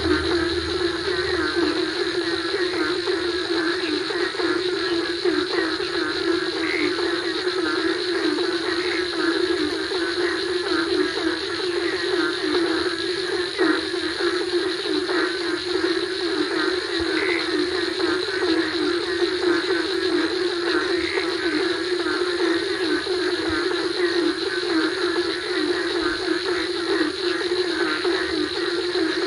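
A dense night chorus of frogs croaking without pause after rain, with a steady high trill of crickets and other insects above it.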